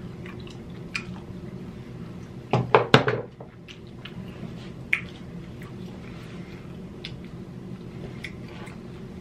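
Handling and mouth sounds at a meal of king crab legs: scattered soft clicks over a low steady hum, with a brief cluster of loud sharp sounds about two and a half seconds in and one more click a couple of seconds later.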